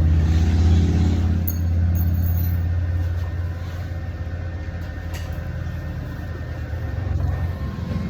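Welding arc burning steadily on a heavy-wall pipe coupon, fed by a Titanium Stick 225 welder, with a steady low hum and a faint crackle over it.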